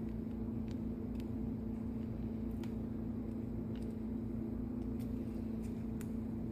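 Steady low machine hum with a strong even pitch and a low rumble beneath it, with a few faint clicks scattered through it.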